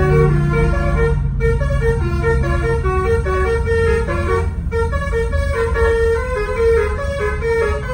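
Bus telolet horn playing a fast tune of short, shifting notes, with a note repeating in a steady pulse and two brief breaks, over the low running of the bus engine.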